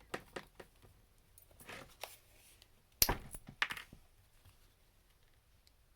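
Small plastic miniature pieces being handled on a table: light clicks and taps, a brief rustle, then a sharp knock about three seconds in followed by a few more clicks.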